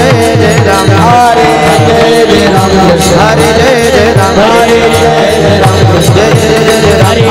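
Warkari devotional music: a sung melody over a steady fast pattern of barrel-drum strokes and many pairs of small brass hand cymbals (taal) clashing in time.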